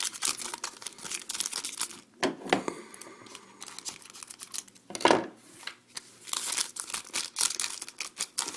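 Hockey card pack wrapper crinkling and tearing as a pack is opened, with irregular rustling of handled cards and one louder stroke about five seconds in.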